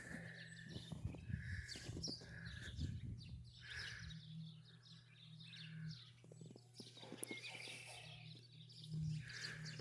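Footsteps crunching in deep snow, with short calls from a bird repeated every second or two and a steady low hum behind them.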